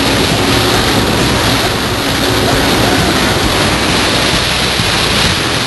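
Steady rush of water and wind from a boat under way at speed, with a faint low engine drone underneath.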